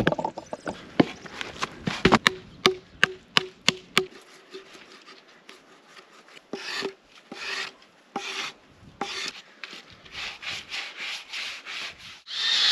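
A log being worked into place against wooden stakes: a run of sharp wooden knocks, then repeated short rubbing and scraping of wood on wood, with a longer, louder scrape near the end.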